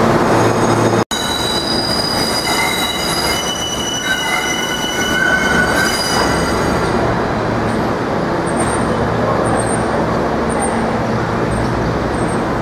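R160A subway train's wheels squealing as it rolls slowly round a curve into the station: a chord of several steady high squeals for the first half, then the rumble of wheels on rail with short high chirps. Before that, a brief steady low hum from a train standing at the platform, cut off about a second in.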